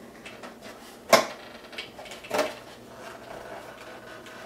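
Plastic clicks and knocks from a 2003 Chevrolet Suburban instrument cluster as its clear plastic lens and face piece are worked free and lifted off. There is a sharp snap about a second in, the loudest sound, and a second knock a little over a second later, with a few light clicks between.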